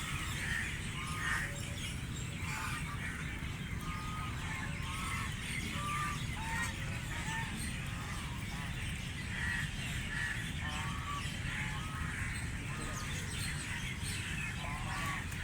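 Birds calling at a pond: many short chirping calls, scattered and overlapping, over a steady low background rumble.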